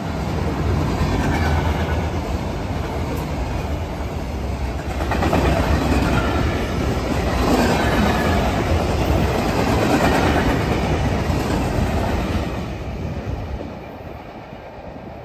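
Freight train cars rolling past at speed, a dense rumble of steel wheels clacking on the rails. The sound drops off sharply near the end as the last cars go by.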